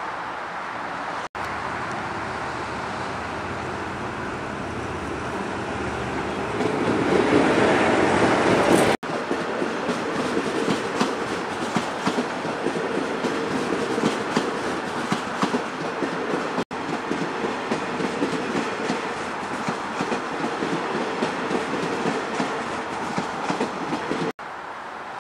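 Passenger train passing close by: a steady rumble that builds to its loudest about eight seconds in, then the wheels clicking over rail joints with a steady hum as the carriages roll past. The sound breaks off abruptly for an instant a few times.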